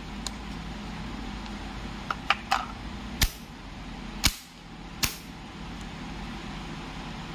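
100 A four-pole moulded case circuit breaker worked by hand at its handle: a few light clicks, then three sharp snaps about a second apart as the spring-loaded switching mechanism snaps over. A steady low hum sits underneath.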